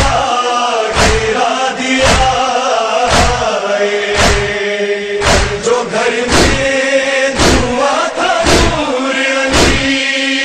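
A group of men chanting an Urdu noha, a mourning lament, in unison, with a sharp chest-beat (matam) about once a second keeping the rhythm.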